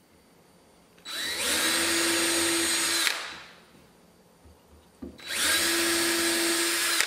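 Cordless drill driving screws through an HDPE runner into a plywood base, run twice for about two seconds each. Each run spins up quickly, holds a steady whine and then winds down.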